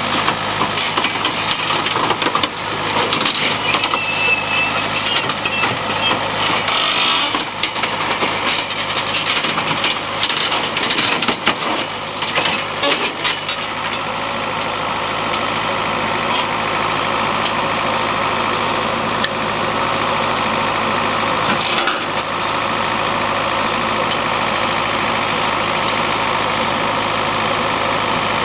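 Diesel engine of an Atlas Copco ROC 642HP crawler drill rig running. For the first half it is mixed with irregular clattering and knocks, then it settles into a steady, even run, with a single sharp knock later on.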